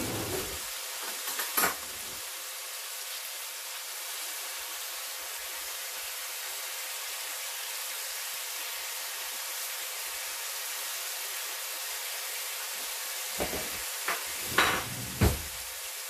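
Lamb legs sizzling steadily in a hot pan with spices, a continuous even hiss. A few short knocks come near the start and again, louder, near the end.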